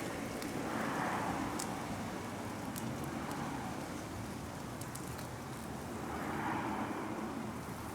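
Steady hum of distant road traffic, swelling twice as vehicles pass, about a second in and again near the end, with a few faint ticks.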